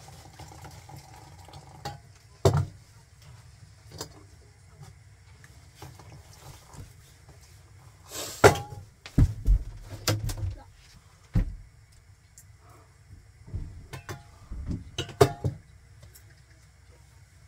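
Red enamel Turkish teapots and their lids clinking and knocking as they are handled and set down on a gas hob, with a few heavier thumps about halfway through and more clinks near the end.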